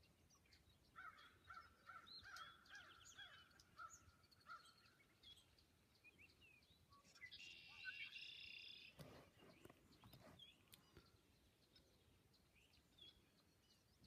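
Red-winged blackbirds singing and calling, faint: a run of short repeated notes for a few seconds, then, about seven seconds in, a buzzy trill lasting a second and a half. A brief low rumble follows the trill.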